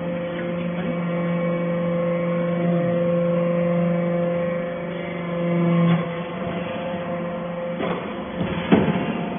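Hydraulic metal-chip briquetting press running, with a steady, loud hum from its hydraulic power unit. The hum swells about six seconds in and then drops abruptly. A few sharp knocks follow near the end.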